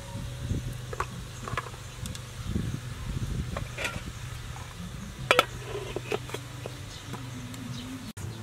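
Aluminium steamer pot clinking and clanking as its tier is set in place and the lid put on, several metal knocks with the loudest about five seconds in, over a steady low buzz.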